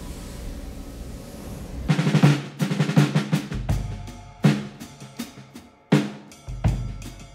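A steady hiss, then about two seconds in, drum-kit music starts: loud snare and bass drum hits in a driving, fill-heavy beat.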